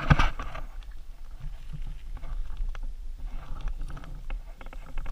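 Crunching and scuffing on a gravel driveway with rubbing and knocking from a body-worn camera, loudest just at the start, over a steady low rumble on the microphone.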